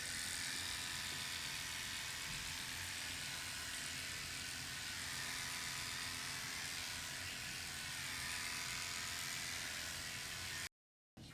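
Electric hair clippers running with a steady buzz as a head of hair is cut short. The sound cuts out abruptly near the end.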